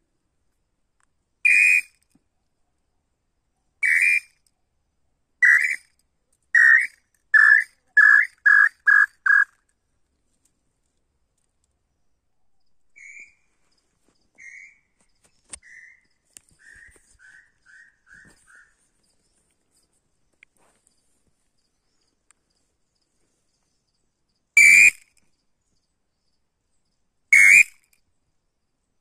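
Tataupa tinamou song: loud, clear whistled notes that come faster and faster and drop a little in pitch, ending in a quick run. A fainter song of the same shape follows about halfway through, and near the end the loud, widely spaced whistles begin again.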